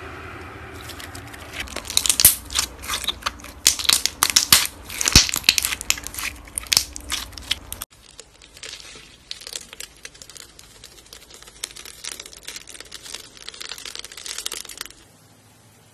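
Slime being squished and pressed by hand, giving dense crackling and popping clicks. The sound cuts to a second, quieter stretch of softer crackling about halfway through, which stops shortly before the end.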